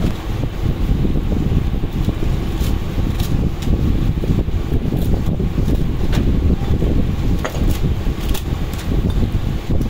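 Steady low rumble of moving air from a running fan, with a few faint sharp clicks scattered through it as metal pump covers and seals are handled.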